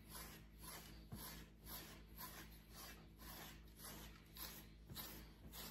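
American Akita panting softly, an even run of about three breaths a second.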